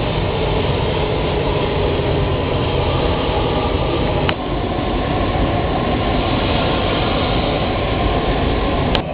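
A McDonnell Douglas KDC-10 tanker's three General Electric CF6 turbofans running at taxi power as the jet rolls close by: a loud, steady rush with a low hum and a faint whine. There is a brief click about four seconds in.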